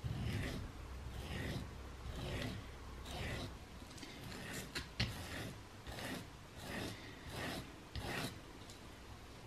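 A steel rotary-engine side seal being rubbed back and forth on a sharpening stone, scraping strokes at about one a second: it is being ground down because it is still too tight in its rotor groove.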